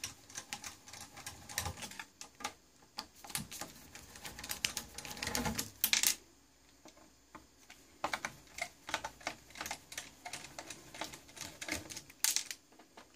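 Irregular clicking and scraping of a screwdriver working the screws out of a metal front panel, with a louder rattle about five and a half seconds in.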